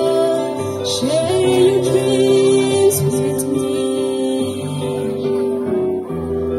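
A woman singing a song into a microphone over instrumental accompaniment, with sustained low bass notes that change every second or so.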